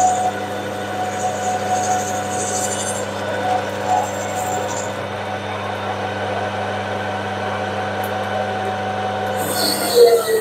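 Metal lathe taking roughing cuts on a steel bar: a steady hum and whine from the running machine, with a high cutting hiss that comes and goes over the first few seconds. Just before the end a louder sound with a wavering tone cuts in.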